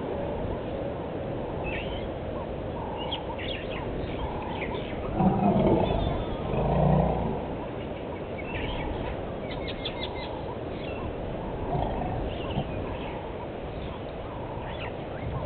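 Steady outdoor background with small birds chirping on and off. About five and seven seconds in come two loud, low African elephant rumbles while young elephants wrestle.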